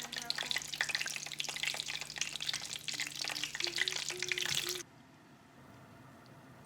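Food frying in hot oil in a pan, a dense crackle with stirring. It cuts off abruptly a little before five seconds in, leaving quiet room tone.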